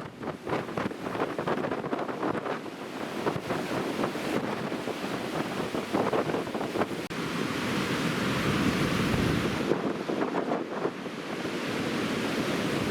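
Heavy winter-storm surf breaking and rushing ashore, with strong wind buffeting the microphone; the rush turns smoother and a little louder about halfway through.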